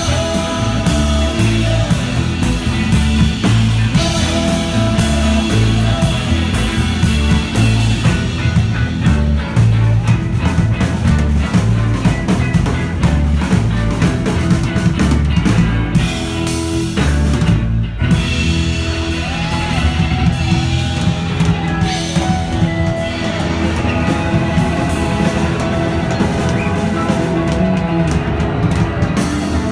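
A rock band playing: drum kit keeping a steady beat under guitar and a moving bass line.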